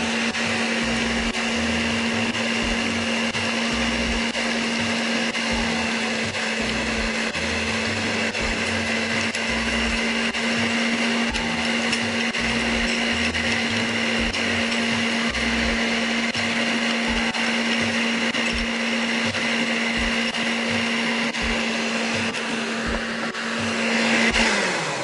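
Electric stand mixer running steadily on low speed, its beaters whisking a liquid berry mousse mixture in a stainless steel bowl: a constant motor hum with a higher whine. Near the end the motor winds down and stops.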